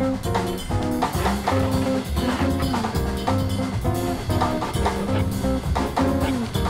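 Background jazz music: drum kit keeping a steady beat under guitar and horn notes.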